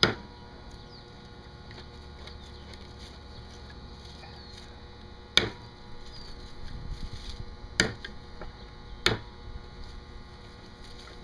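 Steel spike of a hatchet boring into a coconut's eye: a sharp knock at the start, then three sharp clicks in the second half, with faint scraping of the point against the shell between them.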